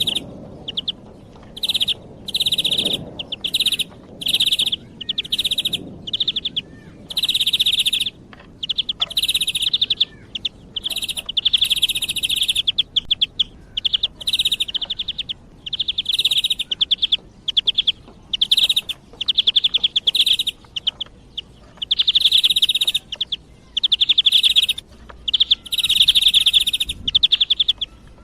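Bee-eater calls: a rolling, trilled call repeated over and over in bursts of varying length with short gaps, a recording used as a hunting lure.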